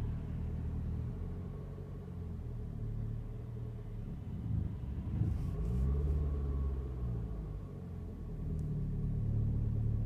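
BMW 3 Series engine heard from inside the cabin, pulling away from a standstill in first gear: the revs rise to about 2,000 rpm around five seconds in, then fall back. This pull-away is free of the grumbling noise the car makes since its timing chain skipped teeth and was repaired.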